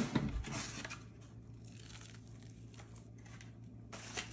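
Crinkling and rustling of a foam meat tray and its packaging as raw chicken breasts are tipped from it into a slow cooker, fading out within about a second. A single light knock comes near the end.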